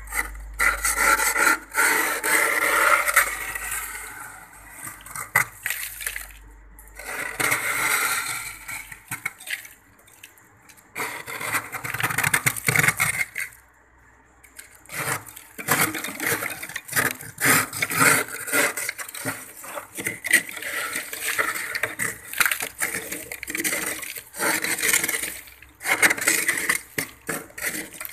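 Scraper gouging thick frost and ice off the walls of a freezer compartment, in irregular rough strokes with a few short pauses.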